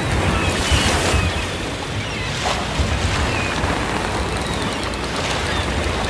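Ocean surf: a steady wash and low rumble of waves breaking on a shore, with faint short seagull calls now and then.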